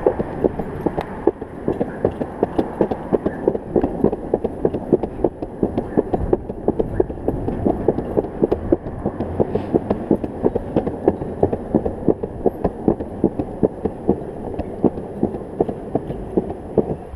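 Longboard wheels rolling fast on a concrete sidewalk with a steady rumble, clacking over the slab joints in a quick even rhythm of about four or five clicks a second.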